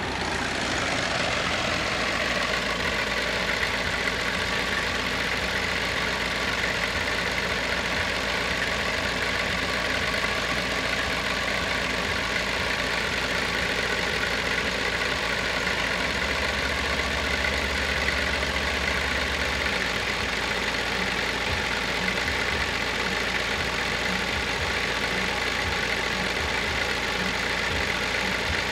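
An engine idling steadily, its even, unchanging sound starting abruptly at the very beginning.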